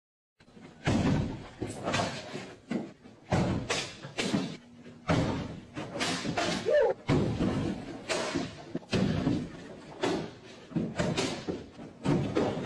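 A run of heavy thuds and slams, about one a second, echoing in a large room, from a person striking punching bags and landing on gym mats.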